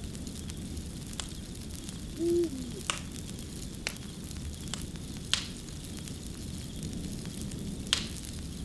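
Wood fire crackling: a steady hiss with sharp pops every second or two. About two seconds in, a short low tone that dips at its end stands out as the loudest sound.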